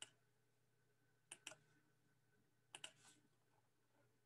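Near silence with faint computer mouse clicks in quick pairs like double-clicks, three pairs about a second and a half apart, over a faint steady hum.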